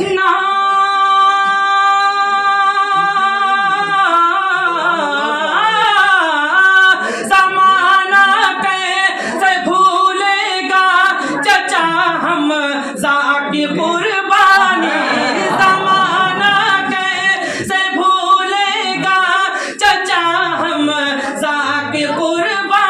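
A man singing a naat unaccompanied in a high voice. He holds one long note for about the first four seconds, then sings winding melismatic phrases.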